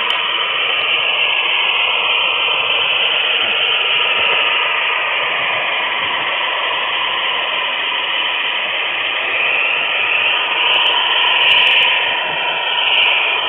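HO scale model train running on the track, heard from a camera riding on one of its flat cars: a steady loud whirring rolling noise, with a few sharp clicks near the end.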